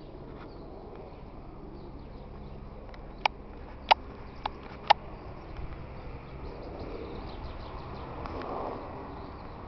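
A horse being ridden, its hooves beating on the ground, with four sharp knocks in quick succession near the middle.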